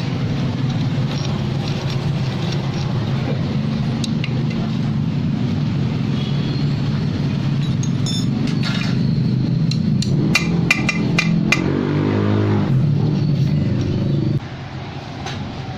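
Low, steady drone of an engine running nearby, cutting off abruptly near the end. In the middle come a few sharp metallic clinks as motorcycle gearbox gears and selector fork parts are handled in an open aluminium crankcase.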